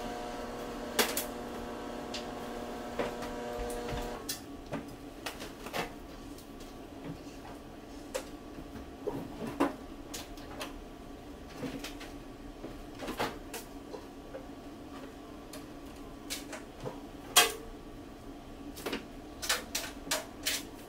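Laundry being handled at a stacked front-load washer and dryer: scattered soft clicks and knocks from the drums and doors as clothes are pulled out and moved. A steady hum runs underneath and cuts off about four seconds in.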